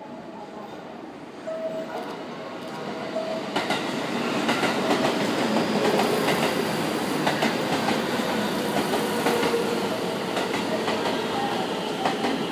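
Electric multiple-unit commuter train running in alongside a station platform, growing louder over the first few seconds and then holding steady. Its wheels click repeatedly over the rail joints.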